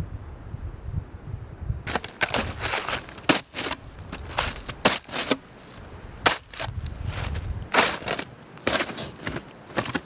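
A shovel blade being stabbed and pried into deep, firm snow to cut out a snow block: a run of sharp, irregular crunches, starting about two seconds in. Before that, a low rumble of wind on the microphone.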